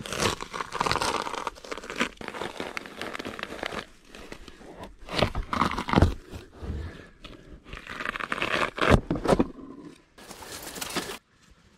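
Ash bark being peeled by hand off the trunk, tearing and crackling as the sheet pulls away from the bare wood, with a few sharper cracks. The sound stops abruptly near the end.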